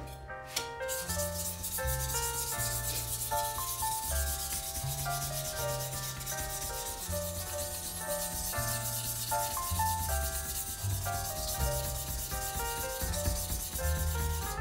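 Usuba knife blade being sharpened: a steady, high scraping hiss of steel on an abrasive that starts about a second in and cuts off at the end, under background piano music.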